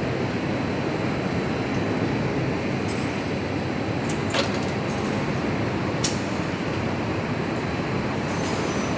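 Assembly-line roller and belt conveyor running steadily, with two sharp clicks about four and six seconds in.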